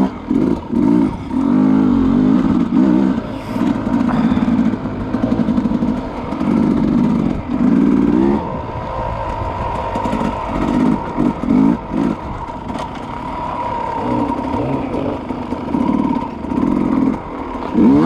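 Two-stroke enduro dirt bike engine revving up and falling back over and over as the throttle is opened and closed while riding. The loud pulls are broken by a few brief lulls where it drops off.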